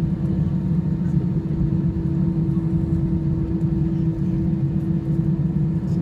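Airbus A320-214 cabin noise while taxiing: the CFM56-5B engines run at low taxi power, heard as a steady low rumble with a steady hum tone over it.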